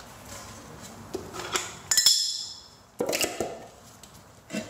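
Hard clicks and knocks of pump parts and tools being handled on a concrete floor, with one loud clink about two seconds in that rings briefly, and a few more knocks near the end.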